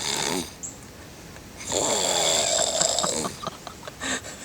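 Snoring in separate breaths: the end of one snore at the start, then one long snore of over a second about two seconds in, and a short breath sound near the end.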